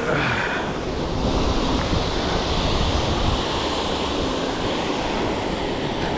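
Steady rushing of a waterfall, with wind buffeting the microphone.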